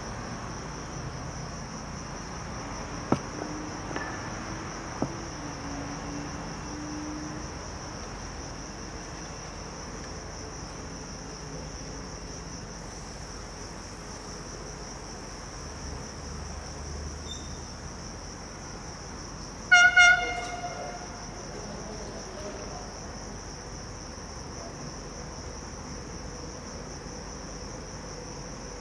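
Crickets chirping steadily in a continuous high trill. About two-thirds of the way through, the approaching train gives a brief, high-pitched horn toot, the loudest sound. A few sharp clicks come a few seconds in.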